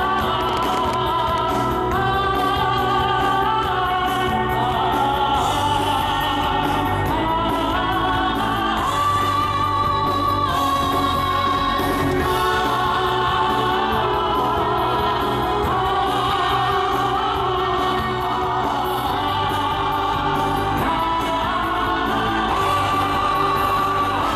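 Show music over loudspeakers: a choral, operatic-sounding piece with wavering sung notes over a steady bass.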